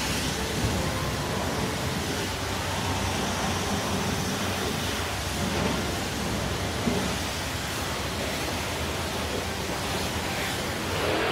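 Steady, even hissing spray: a cartoon truck-wash sound effect of a high-pressure jet washing down a muddy monster truck.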